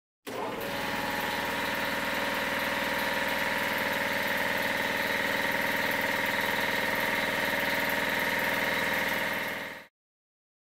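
A steady, machine-like whirring drone with several held tones, used as the sound effect under an opening title card. It starts suddenly and fades out quickly near the end.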